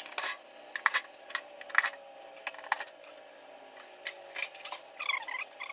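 Light clicks, taps and knocks of small parts and tools being handled, with a couple of short squeaks near the end, during work on the refrigerator's freezer drain.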